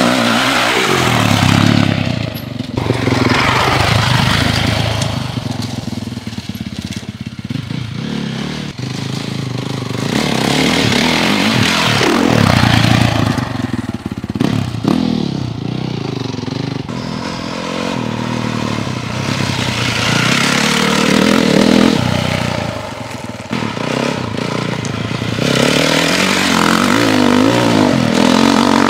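2010 Honda CRF450 dirt bike's single-cylinder four-stroke engine being ridden hard, revving up and easing off again and again, its pitch climbing with each pull and the sound swelling loud and falling back every few seconds.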